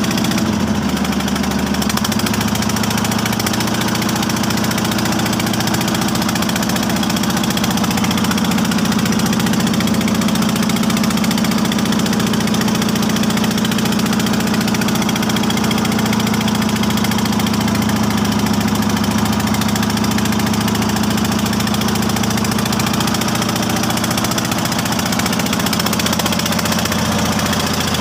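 Wooden fishing boat's engine running steadily while the boat is under way, a constant low drone.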